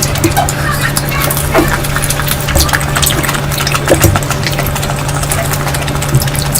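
Close-miked mouth sounds of someone eating a curry meal: wet chewing and lip smacks, with many short clicks, over a steady low hum.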